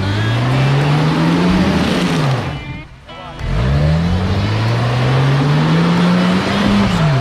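Off-road 4x4's engine revving up twice on a steep trail climb. Each time its pitch rises steadily for two to three seconds and then drops, with a short lull about three seconds in.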